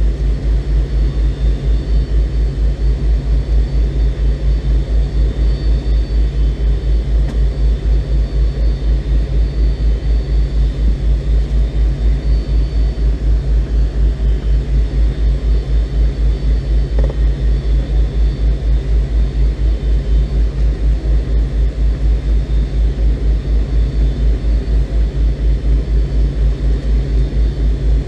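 Steady cabin roar from the McDonnell Douglas MD-82's rear-mounted Pratt & Whitney JT8D turbofan engines, heard from a seat in the rear cabin. The roar holds at one level with a fast, even throb.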